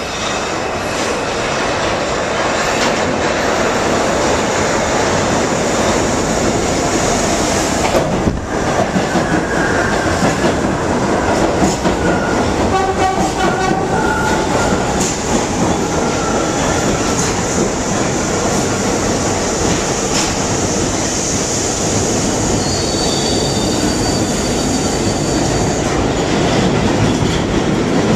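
New York City subway train running through the station: a loud, steady rumble of wheels on the rails that grows louder about two seconds in, with clickety-clack and brief high squeals from the wheels partway through and again near the end.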